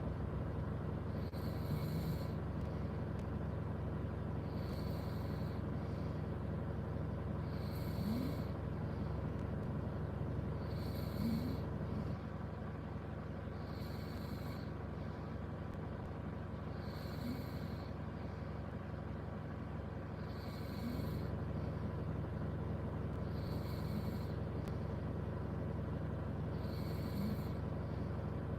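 A sleeping person snoring in a car, one breath about every three seconds, over a steady low hum.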